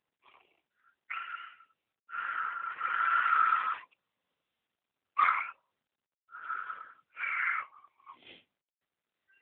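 A person snoring: about six irregular, wheezy breaths, each carrying a thin whistling tone, the longest drawn out for nearly two seconds about two seconds in.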